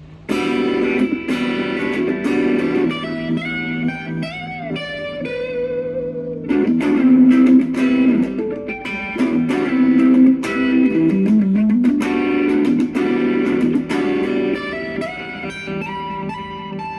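Electric guitar music: a melodic line with bent, gliding notes over a sustained backing, starting abruptly just after the beginning.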